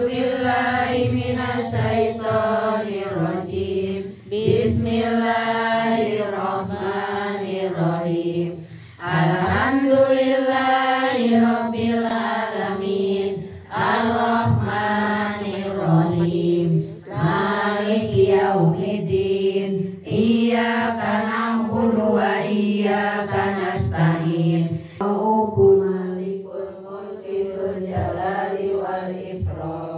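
Women's voices chanting a slow melody together, with long held, wavering notes in phrases a few seconds long, each separated by a short breath.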